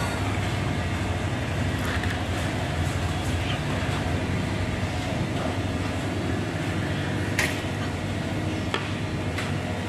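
Steady low background hum and noise, with a few sharp clicks in the second half.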